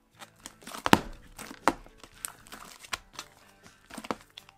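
Fluffy shaving-foam slime being pulled and squished off the sides of a plastic bowl by hand, giving irregular sticky crackles and pops. The loudest come about a second in and again shortly after.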